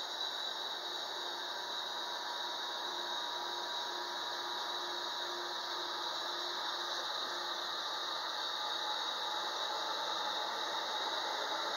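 Steady mechanical drone of boat engines on the river, with a faint steady hum and a bright hiss. It grows slowly louder toward the end as the towboat pushing the barges draws alongside.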